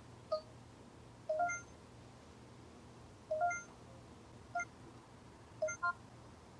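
Short electronic beeps from a camcorder's menu buttons: about five brief blips at uneven spacing, the last one a quick double.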